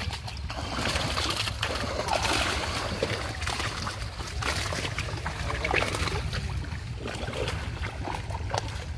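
Pond water splashing and sloshing in irregular bursts as a fishing net is drawn through the shallows with fish caught in it, over a steady low rumble.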